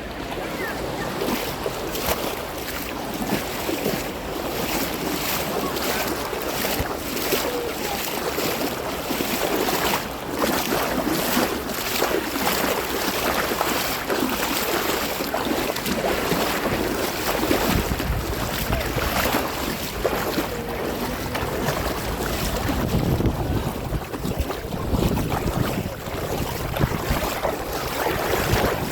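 Sea water splashing and lapping close by, with wind rumbling on the microphone, strongest in the second half.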